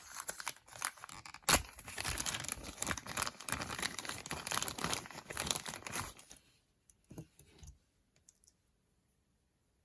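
Packaging crinkling and rustling as it is handled and opened, with one sharp snap about a second and a half in. The crinkling stops about six seconds in, leaving a few faint handling sounds.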